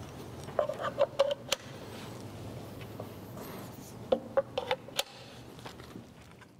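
Speaker cable connectors being plugged into the metal-cased D-fend SA300 protection unit on top of a subwoofer: a cluster of sharp clicks and knocks about half a second in, and another around four seconds in, over a low steady room hum.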